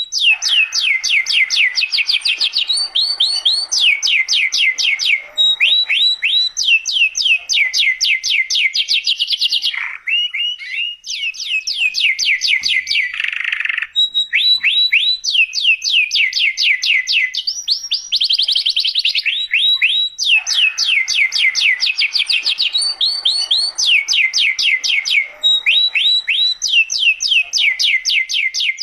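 Domestic canary song played as a masteran (tutor recording for young canaries): rapid rolling trills of quick falling whistled notes, one phrase after another, broken briefly a little past a third of the way in by a few different, lower calls.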